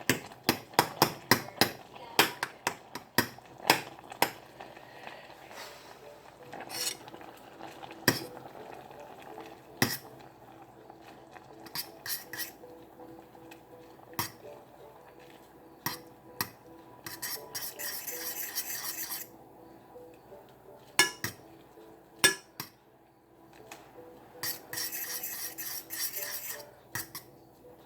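Metal utensil stirring in a pan on the stove, with repeated clinks and scrapes against the pan. Twice it is joined by a few seconds of hissing.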